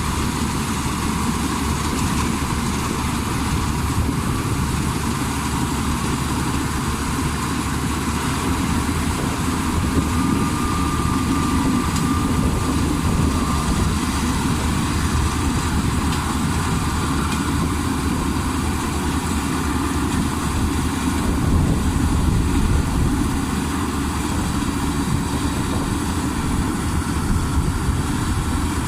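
Crown Sumo combine harvester's diesel engine running steadily.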